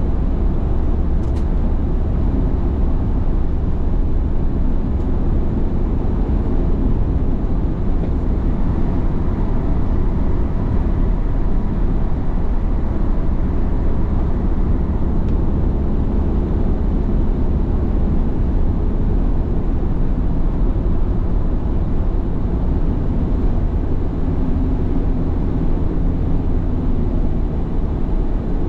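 A car driving along a road: a steady low rumble of engine and tyre noise that stays level throughout.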